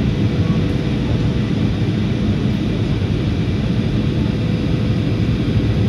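Steady in-flight cabin noise of a jet airliner heard beside its wing-mounted turbofan engine: an even, low rumble with a faint steady hum.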